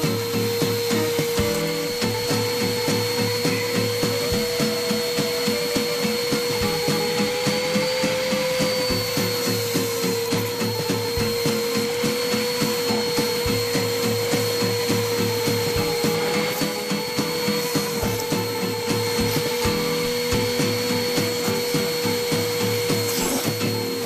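Vacuum cleaner running with a steady whine, its pitch rising slightly a couple of times, while its red crevice tool is held down at the carpet. Over it comes rapid, uneven scratching and rubbing against the carpet.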